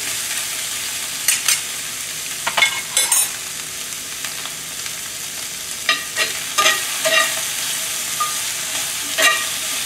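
Mushrooms and snow peas sizzling steadily in a cast iron skillet on medium-low heat while a metal spatula stirs and tosses them, scraping the pan in short strokes every second or two.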